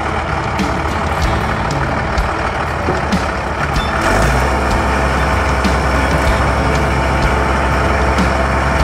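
Caterpillar 977L crawler loader's Cat 3306 six-cylinder diesel engine running steadily, growing louder about four seconds in.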